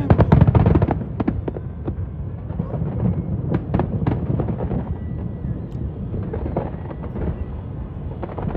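Fireworks going off: a dense volley of bangs and crackles in the first second, then scattered single bangs over a steady low background noise.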